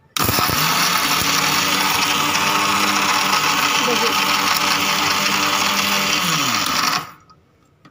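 Electric mixer grinder (mixie) running, whirring as it grinds biscuits into crumbs. It starts suddenly, runs steadily for about seven seconds, then is switched off near the end, its motor whine falling in pitch as it stops.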